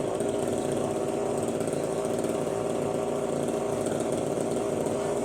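Small motor running with a steady, unbroken buzz.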